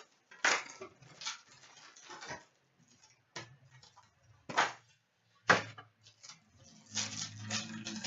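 Trading-card boxes and foil packs being handled and opened: a string of short rustles and light knocks, about six spread irregularly, with quieter crinkling between.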